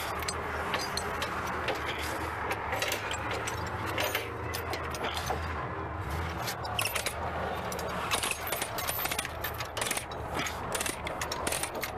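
Steel tie-down chain clinking and rattling as a chain binder is hooked onto it, the clinks coming thicker in the second half, over a steady low hum.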